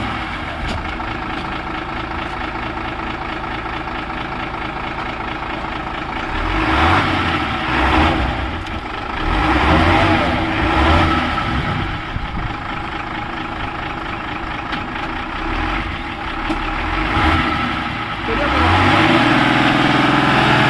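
Heavy diesel engine running at a steady idle, revved up several times in the middle and again near the end, where its pitch rises.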